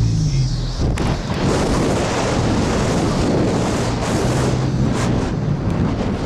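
Wind buffeting the microphone of a camera held out of a moving car's window, mixed with road and tyre noise. It starts suddenly about a second in, replacing the steady hum of the car's cabin.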